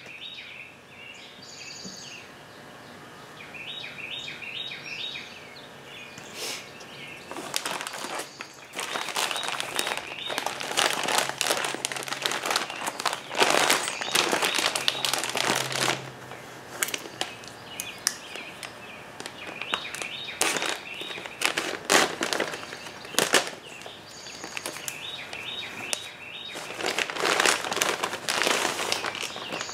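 Clear plastic parts bags crinkling as they are handled and pulled open, in bursts of several seconds. Birds chirp in the background.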